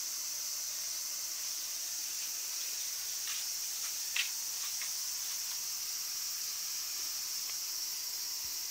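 Steady high-pitched chorus of insects, with a few faint ticks and one sharper click about four seconds in.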